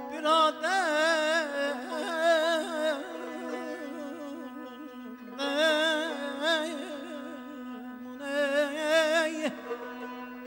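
Azerbaijani mugham: the khanende sings a wordless melismatic vocalise with wide, rapid trill-like ornaments (tahrir), in three phrases with short gaps between. Under it the accompanying strings hold one steady note.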